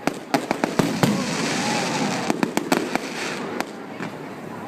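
Fireworks exploding: an irregular run of sharp bangs and cracks over a constant crackling rumble, thickest in the first couple of seconds.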